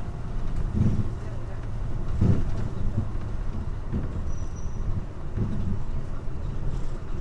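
Hino Blue Ribbon KC-HU city bus under way, heard inside the cabin: its diesel engine runs with a steady low rumble and road noise that swells and eases every second or so.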